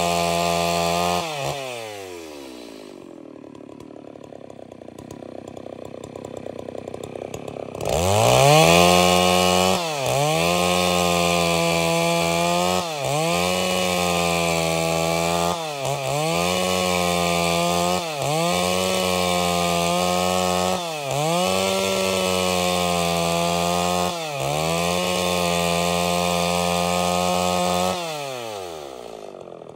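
Stihl MS 381 two-stroke chainsaw ripping angico wood into boards. About a second in it drops to idle, revs back up to full throttle about eight seconds in and runs flat out with its pitch dipping briefly every two to three seconds, then drops back to idle near the end.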